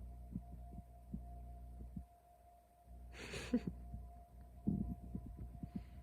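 Soft low thumps and shuffles from a puppy settling, with one short breathy huff or snort about three seconds in and another faint one near the end, over a faint steady hum.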